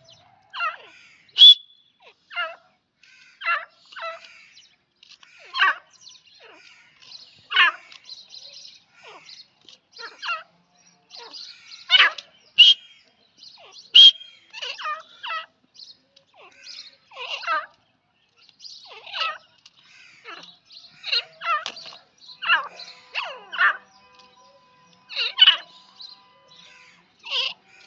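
Grey francolins calling: short, scratchy calls repeated every second or two, some louder than others, with a few brief high whistles among them.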